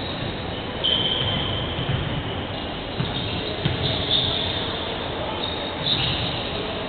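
Basketball shoes squeaking on a hardwood court: short, high squeals about a second in, around four seconds and near six seconds, over a steady hall hubbub with scattered dull thuds.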